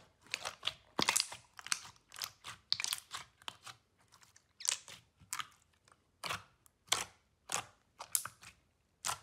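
Clear glitter slime being pressed and stretched by hand in a glass dish: a run of short, wet crackles and pops, about two a second at first, then spaced further apart after a brief lull in the middle.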